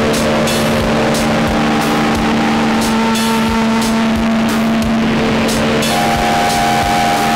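Homemade modular synthesizer playing noise music: a steady low drone under a rough, noisy wash, with higher held tones that shift and scattered sharp clicks. A new higher tone comes in about six seconds in.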